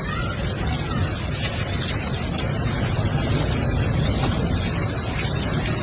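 Heavy rain falling steadily, a dense even hiss, with a low rumble underneath.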